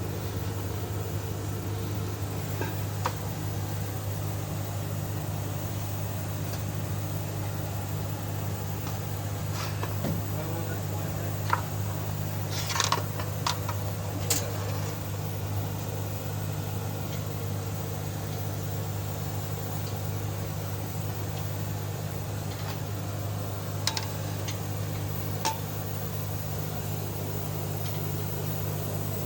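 A machine running with a steady low hum, with a few short sharp metallic clinks, most of them around the middle and two more near the end.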